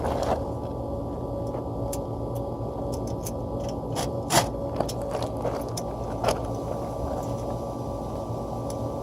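Small metal clicks and clinks of washers and nuts being fitted by hand onto a fan motor's mounting studs, sharpest about four and a half seconds in and again near six seconds, over a steady mechanical hum.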